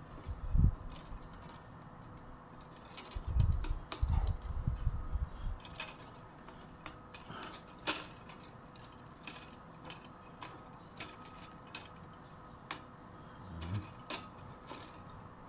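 Thin bamboo strips clicking and rattling against each other as they are hand-woven into a criss-cross basket base. There are irregular sharp clicks throughout, with dull low thumps about half a second in and again from about three to five seconds in.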